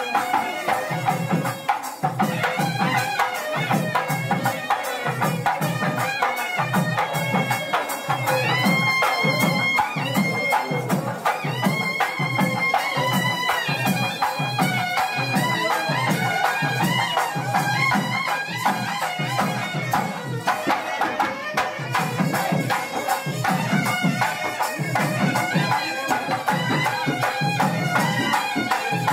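Traditional South Indian processional music: a quick, steady drumbeat with a reedy wind instrument playing a melody over it.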